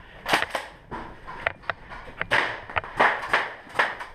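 An irregular string of sharp knocks and clacks with rustling between them, about ten in four seconds, and a longer rustle a little past two seconds in.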